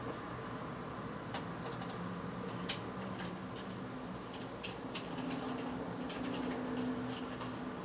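Computer keyboard keys clicking in scattered taps, over a low steady hum.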